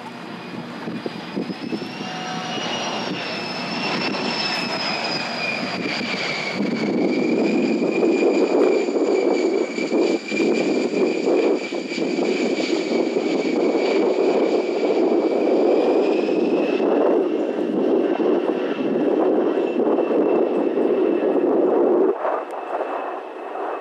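A-10 Thunderbolt II's twin turbofan engines going by with the landing gear down: a high whine that sags slightly in pitch as the jet passes, with a rushing roar that swells about a quarter of the way in, holds loud, and falls away sharply near the end.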